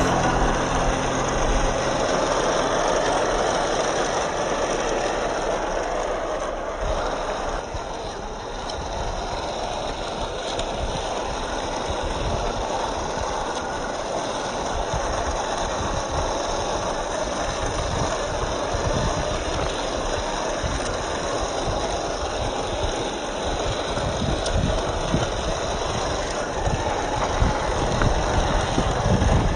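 Electric motor and gear drivetrain of an MN128-based 1/10 RC off-road truck running as it crawls over dirt and stones, dipping a little in level about a quarter of the way in.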